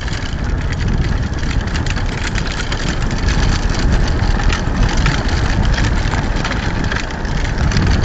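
Steady rumble and rattle of a wheeled dog-training rig rolling fast over a bumpy dirt trail behind a running sled-dog team, with small clicks and knocks throughout.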